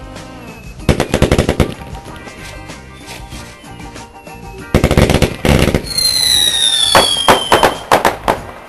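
Fireworks going off: a rapid string of crackling bangs about a second in and another near the middle, then several whistling tones falling in pitch, with a few more sharp bangs near the end.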